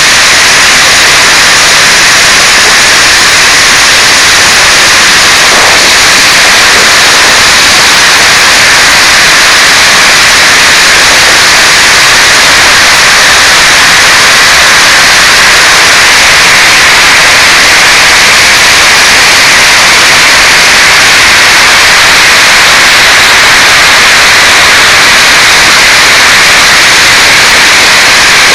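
Heavy rain mixed with hail pouring down in a hailstorm: a loud, unbroken hiss with no letup, loud enough to overload the microphone.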